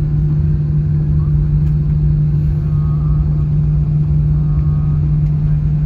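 Steady low drone inside an airliner cabin just after landing, with a constant hum and faint passenger voices in the background.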